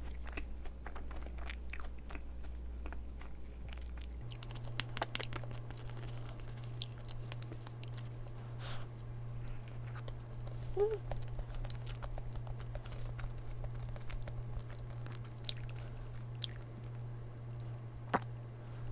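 A person chewing soft cake with chestnut pieces close to the microphone: small wet mouth clicks and smacks, with a brief hum-like mouth sound around the middle. A steady low hum runs underneath and shifts up in pitch about four seconds in.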